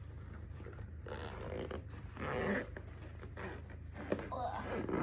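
Zipper being pulled shut on a bird carrier backpack, in two long rasping pulls.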